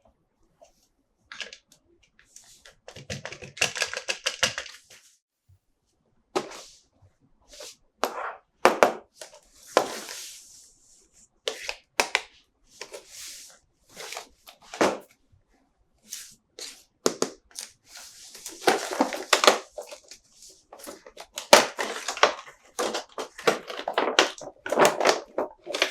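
Toy packaging being opened and handled: bursts of plastic and cardboard crinkling and tearing, with scattered clicks and knocks of plastic toy parts.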